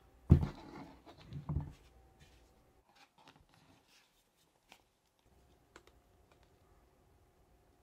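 A cardboard iPhone 14 box knocking on a desk as it is set down, a second knock about a second later, then faint rubbing and light ticks of fingers handling the box.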